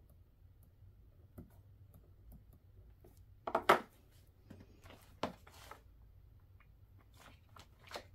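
Small items being handled and set down on a desk, with scattered clicks and light rustles and one louder knock about three and a half seconds in. Near the end a hand rummages in a cardboard box of bagged items.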